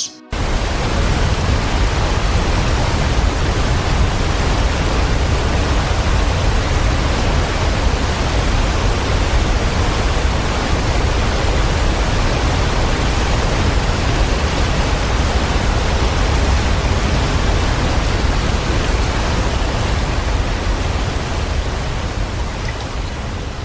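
Materuni Waterfall, about 90 m tall, crashing down: a loud, steady, even rush of falling water with a heavy low rumble, easing slightly near the end.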